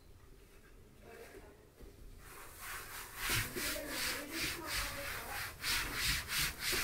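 Wet wipe rubbed briskly back and forth on a laminate floor: a quick run of scrubbing strokes, about three or four a second, starting about two seconds in.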